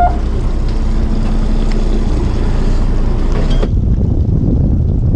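Fishing boat under way: engine drone with wind buffeting the microphone and water rushing past the hull. A little over three and a half seconds in it cuts abruptly to a duller, low rumble of wind on the microphone.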